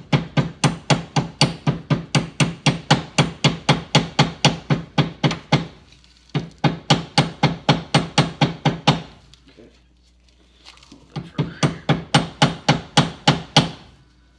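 Hammer lightly tapping new neoprene bushings with metal sleeves into a golf cart's front suspension, in quick even strikes about three or four a second. Three runs of taps, the first long, with short pauses between.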